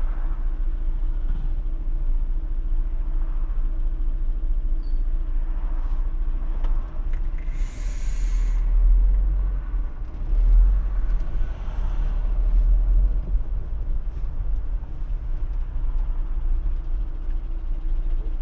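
Steady low engine rumble inside a Fiat Fiorino van's cabin, idling in slow traffic. About eight seconds in, a short air hiss from the city bus alongside releasing its air brake, then the bus's engine rumbles louder for a few seconds as it moves off.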